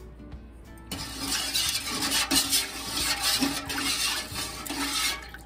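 A spoon stirring thin vinegar-and-sugar brine in a large stainless steel pot, the liquid swishing against the metal. It starts about a second in and stops shortly before the end.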